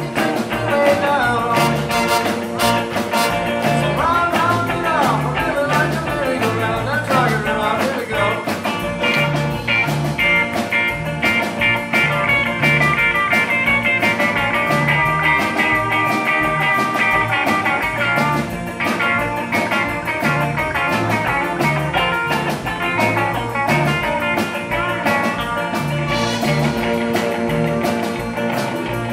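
Live rockabilly band music: electric guitar with bending notes over a walking upright-bass line and drums, backed by a horn section holding long notes.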